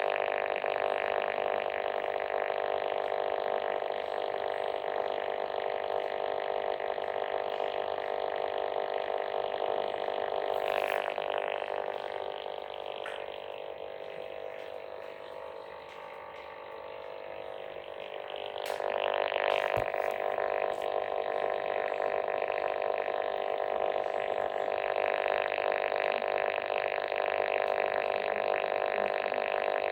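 Baofeng UV-5R handheld radio's speaker playing a steady buzzing signal received on 148.460 MHz, a dense stack of tones like interference. The buzz weakens about twelve seconds in and comes back at full strength a little after halfway.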